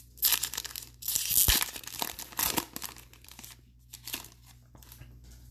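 A trading-card pack's wrapper being torn open and crinkled by hand, with dense rustling for the first few seconds, then softer scattered crackles.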